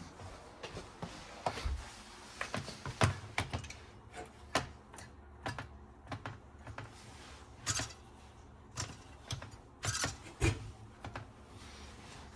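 Irregular clicks and knocks of tools and metal parts being handled while a stove is worked on, over a faint steady low hum.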